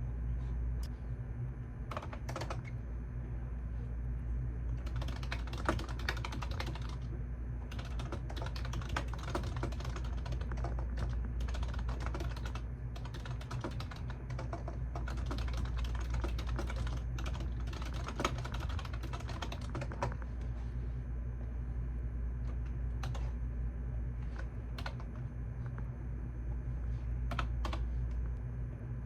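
Typing on a computer keyboard: a few scattered keystrokes, then a fast, continuous run of typing from about five to twenty seconds in, then scattered keys again, over a steady low hum.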